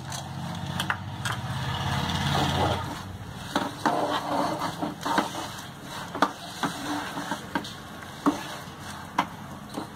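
Wooden spatula stirring and scraping a thick, sticky mix of jaggery syrup, sesame seeds and peanuts in a non-stick pan. From about three seconds in, the spatula knocks sharply against the pan every half second or so. A low hum runs under the first three seconds.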